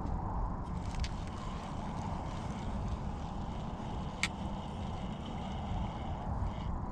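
Steady wind rumble on the microphone over open water from a small fishing boat, with one sharp click about four seconds in.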